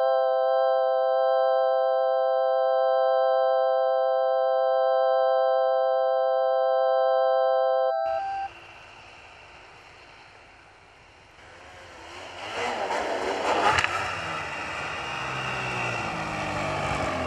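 A sustained synthesizer chord of pure held tones, cut off abruptly about eight seconds in. After a short lull a snowmobile engine revs up and passes close, its pitch rising and falling, loudest about three-quarters of the way through.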